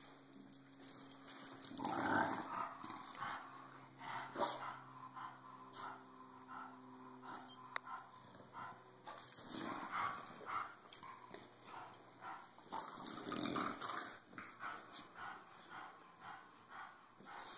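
Two English bulldogs play-fighting, growling and making dog noises in irregular bursts. The loudest burst comes about two seconds in, with others around ten and thirteen seconds.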